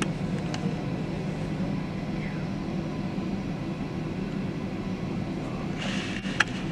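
Steady low drone of jet airliner engines as aircraft taxi close by. Near the end comes a brief hiss and a single sharp click.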